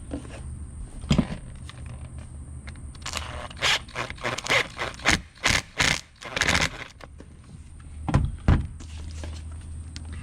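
Hand work on a steering wheel: a quick run of short scrapes and clinks of a screwdriver and small metal parts in the middle, with a knock about a second in and two more near the end, as screws are started into the paddle-shifter blank covers. A steady low hum runs underneath.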